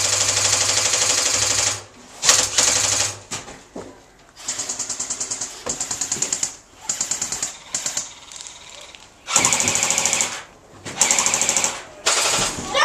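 Airsoft electric guns firing on full auto: a series of rapid bursts, each up to about two seconds long, with short gaps between.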